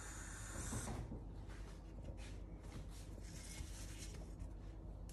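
Faint rubbing and light handling noises over a low steady hum.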